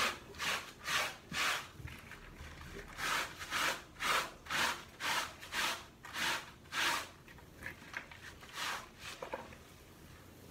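Hand scrub brush scrubbing a cloth mat by hand in rhythmic back-and-forth strokes, about two a second, its bristles rasping on the fabric. The strokes slow and thin out near the end.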